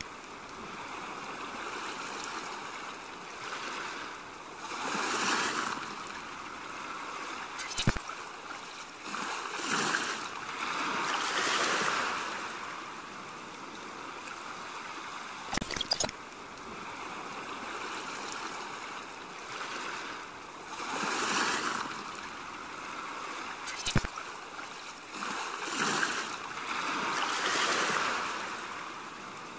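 Quiet ambient sound design: soft swells of rushing noise, each rising and fading over a second or two, with a short sharp click about every eight seconds.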